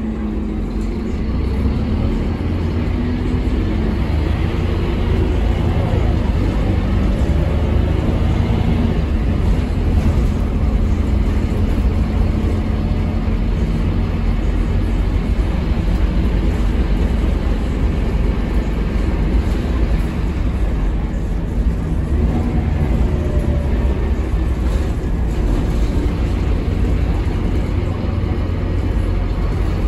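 Interior ride noise of a Scania K230UB low-floor bus, heard from the rear seats. Its rear-mounted Scania DC9 five-cylinder diesel engine gives a steady deep rumble, and its pitch falls away near the start and rises again about two-thirds of the way through as the bus slows and pulls away.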